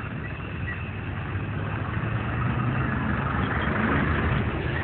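A truck engine running as it drives past close by. It grows louder toward a peak about four seconds in.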